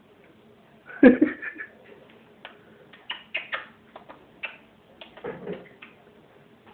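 A pet ringneck parakeet vocalizing. It gives a loud call about a second in, then a run of short clicks and chirps, and another call about five seconds in.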